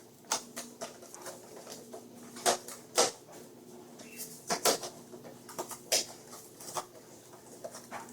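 Hands handling and tugging at packaging that won't open: scattered, irregular clicks, crinkles and knocks, with a faint steady hum underneath.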